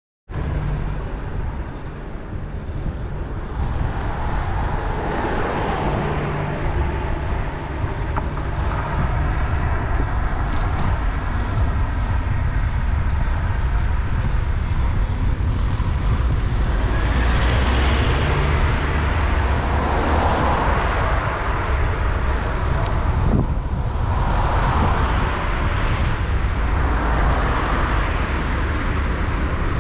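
Road traffic heard from a moving bicycle: a steady low rumble, with several vehicles swelling up and fading as they pass, one car going by near the end.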